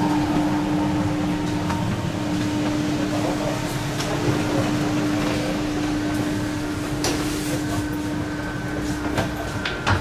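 Steady hum of a passenger train carriage's air conditioning, one low tone held throughout, with a few light knocks and clicks near the end.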